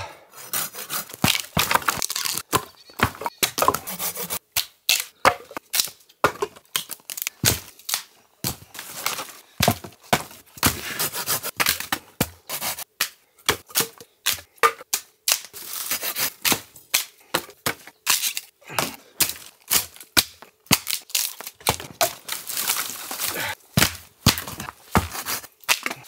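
Dead, partly rotten branches cracking and snapping as they are broken up by hand for firewood: a steady run of sharp, irregular cracks and splintering snaps.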